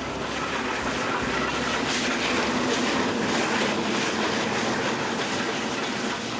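Nilgiri Mountain Railway steam train crossing a girder bridge, a steady noise of the running train.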